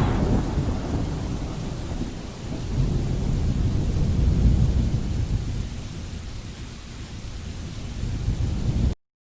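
Low rolling rumble of thunder with a faint hiss of rain. It swells twice and fades, then cuts off abruptly near the end.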